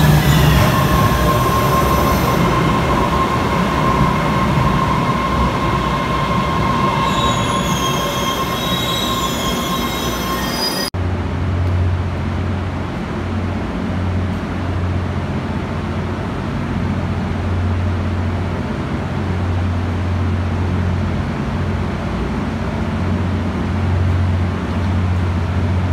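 MBTA Red Line subway train running through an underground station, its wheels squealing with a steady high whine over the rumble, slowly fading. About eleven seconds in it cuts off abruptly to a low, steady rumble.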